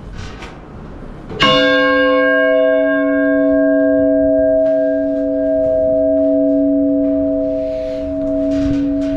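A large church bell struck once about a second and a half in, then ringing on loudly. Its higher overtones fade within a few seconds, while its deep hum and lower tones hang on steadily.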